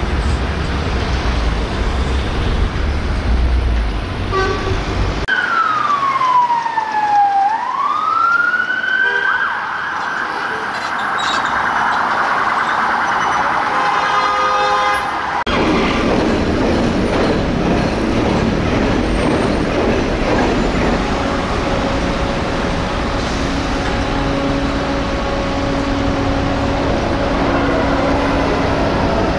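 Siren of a police van: one slow sweep down and back up, then holding high for several seconds before it cuts off suddenly. Road traffic noise runs before and after it.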